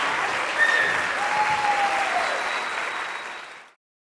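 Audience applauding, with a brief cheer heard over the clapping, fading out about three and a half seconds in.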